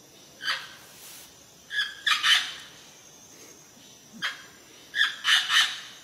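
Amazon parrot squawking loudly in short, harsh calls: a single call about half a second in, a pair around two seconds, another single call around four seconds and a pair around five seconds.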